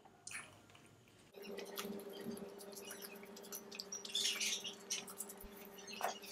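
Close-miked mouth sounds of someone eating: wet chewing with small smacks and clicks and a brief crackly patch near the middle. A low steady hum comes in about a second in.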